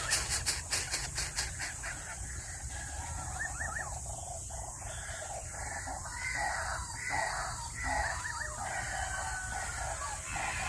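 Rough animal calls in short noisy bursts through the middle, after a quick run of clicks at the start, over a steady high hiss and low rumble.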